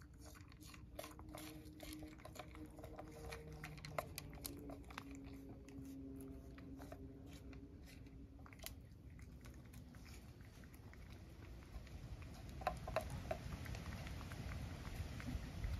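Cat licking a lickable paste treat from a small bowl: quick, irregular wet tongue clicks. A low rumbling noise rises near the end.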